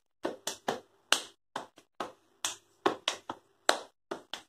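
Body percussion: a hand slapping the chest in a repeating rhythmic pattern of short, sharp strokes, about three a second, some louder than others.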